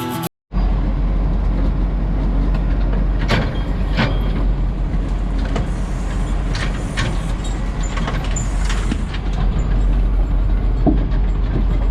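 A vehicle engine running steadily with a low rumble, with a few light knocks and clicks scattered through it.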